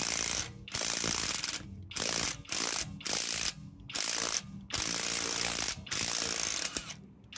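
Impact wrench hammering in repeated bursts of about half a second to a second, with short pauses between them, working a stubborn wheel lug bolt loose.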